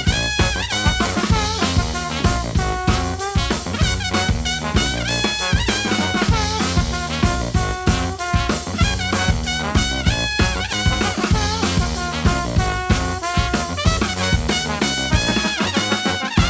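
Brass band with drum kit playing an up-tempo number: brass horns on the melody over a steady driving beat.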